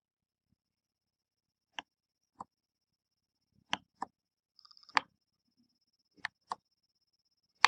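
Plastic buttons on a PlayStation 3 controller clicking as they are pressed, about eight separate presses at irregular intervals, with a faint steady high-pitched tone underneath.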